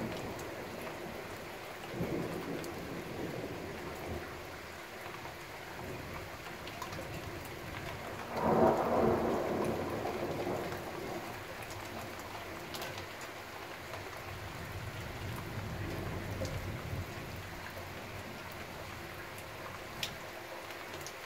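Thunderstorm: steady rain falling, with a loud clap of thunder about eight and a half seconds in that rumbles away over the next couple of seconds, and a weaker rumble about two seconds in.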